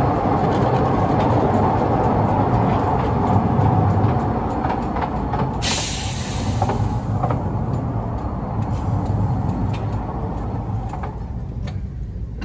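Miniature ride-on railway train running along its track, a steady rumble with scattered sharp clicks. A short hiss comes about six seconds in, and the running grows quieter near the end.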